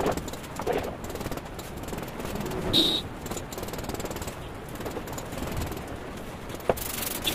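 Hand tools working a wet cement-mortar bed for floor tiles: scraping with a run of small irregular knocks and clicks. A short high squeak about three seconds in and a sharp knock near the end.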